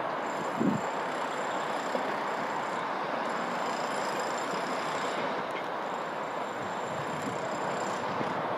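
Class 150 Sprinter diesel multiple unit approaching with a steady rumble of its wheels and diesel engines, with a brief low thump about half a second in.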